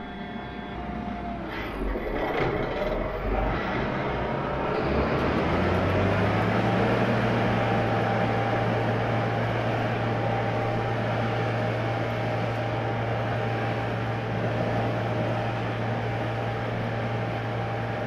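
John Deere T670i combine harvester with its threshing and cleaning mechanism engaged, running up to speed over the first few seconds with a rising whine, then running steadily with a low hum. The machine is blowing the dust out of itself, a clean-out while it is being serviced.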